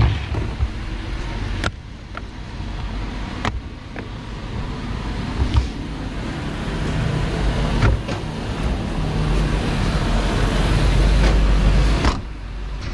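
Sharp clicks of a plastic hard equipment case being unlatched and opened and the device handled, over a steady low rumble that swells and then cuts off abruptly near the end.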